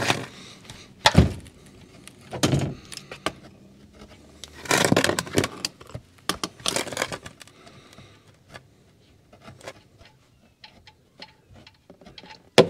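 Hand tools working at a car's oil drain plug as it is loosened: a few sharp metal knocks, two longer scraping, rustling stretches in the middle, and scattered small clicks toward the end.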